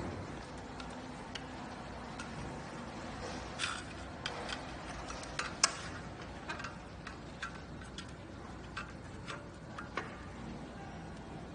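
Irregular light clicks and taps as a carbon-fibre heat shield and its band clamp are handled and fitted against a motorcycle exhaust silencer, with one sharper click a little past the middle.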